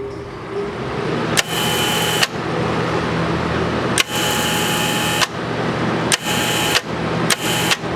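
TIG welder's transformer humming steadily while a relay inside clicks in and out four times, each closure bringing a burst of hissing buzz. This is a test of newly adjusted relay contact points, which are not yet working right.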